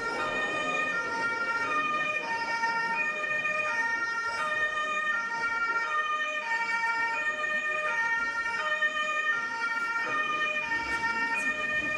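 Bagpipe music: a melody of held notes, each about half a second to a second long, over a steady high drone.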